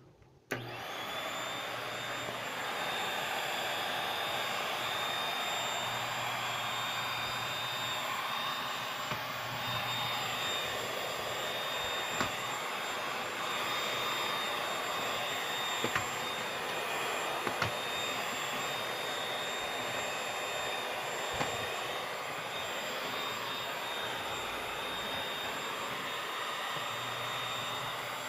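Bissell 3-in-1 stick vacuum switching on about half a second in and then running steadily, with a high whine over its motor and airflow noise, while it vacuums up paper shreds. A few sharp ticks stand out here and there.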